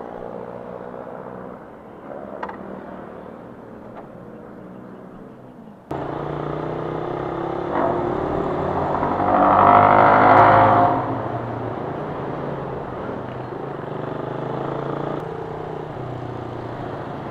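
Suzuki Raider 150 motorcycle's engine, first running steadily and quietly. After a sudden jump about six seconds in, it runs louder as the bike rides through traffic, with wind and road noise. The noise swells loudly for a couple of seconds around the middle.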